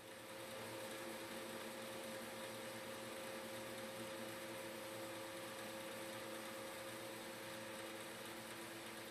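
Faint steady hiss of background room tone with a low electrical hum of a few steady tones underneath. It fades up at the start and dips slightly near the end.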